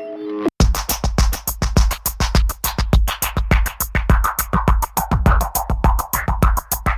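Electronic background music: a few soft synth notes break off with a short gap about half a second in, and a fast, driving drum-machine beat with heavy bass starts.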